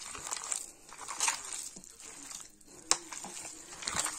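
Hands kneading wet ground pork mince in a stainless steel bowl, making irregular squelching and slapping sounds, with one sharp knock about three seconds in.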